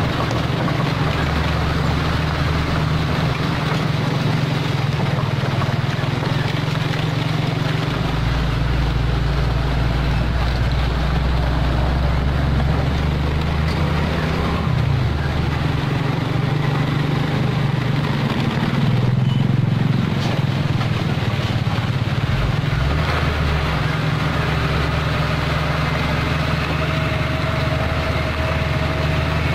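Mitsubishi Fuso 220 PS self-loader truck's diesel engine running steadily as the truck moves slowly with an excavator on its deck. The engine note changes a few times along the way.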